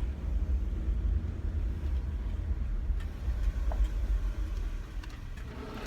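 Steady low rumble of a car, engine and running noise heard from inside the cabin.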